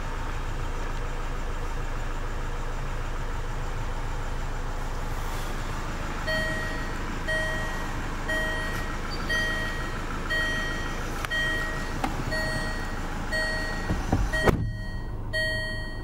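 Land Rover Discovery Sport cabin with a steady low hum, and from about six seconds in the dashboard warning chime sounding about once a second, about ten times, while the cluster shows a warning. Near the end come a couple of low knocks, and the hiss then drops away.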